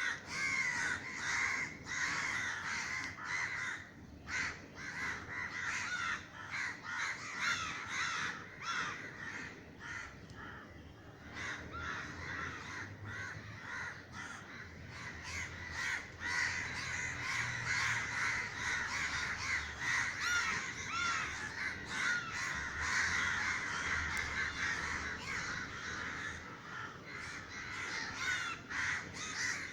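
A large flock of crows cawing at once, many harsh calls overlapping without a break, thinning briefly twice and growing denser about halfway through. The flock is alarmed, flushed into the air by a loud bang from a crow-scaring gun.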